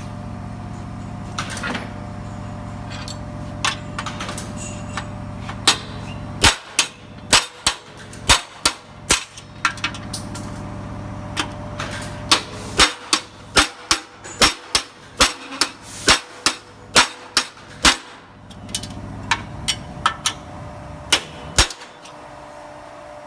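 Hammer blows on metal, knocking the drilled rivets out of an appliance dolly's cross member and side rail: a few scattered strikes at first, then quick runs of about two a second. A steady low hum underlies the first six seconds.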